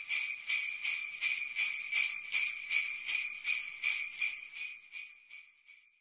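Jingle bells shaken in a steady rhythm, about three shakes a second, with a bright high jingle that fades away near the end.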